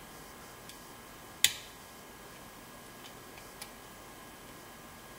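Small metallic clicks of a hook pick working the pins inside a six-pin Keymark mortise cylinder during lock picking: one sharp, loud click about a second and a half in, then a few faint ticks.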